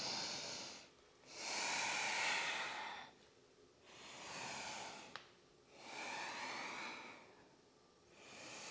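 A woman's slow, deep breathing: long, audible in- and out-breaths in swells of one to two seconds, five in all, with one faint click about five seconds in.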